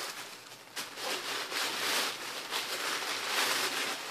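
White packaging wrapping crinkling and rustling in irregular bursts as it is handled and unwrapped by hand.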